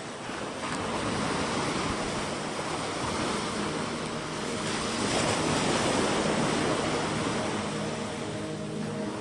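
Sea waves washing ashore, a rushing surge that swells to its loudest about five to six seconds in and then eases, with a faint steady hum joining in the second half.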